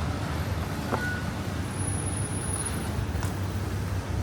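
City street ambience: a steady low rumble of traffic, with a short click about a second in.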